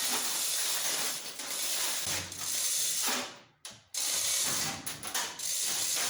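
Manual chain hoist being worked to lift a car body off its frame: a steady ratcheting rattle from the hoist's pawl and chain, broken by a brief silence about three and a half seconds in.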